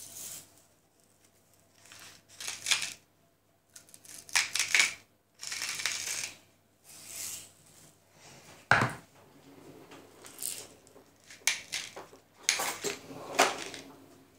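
Hand-twisted pepper and salt mills grinding into a jar in a series of short crunching bursts. There is one sharp knock about nine seconds in.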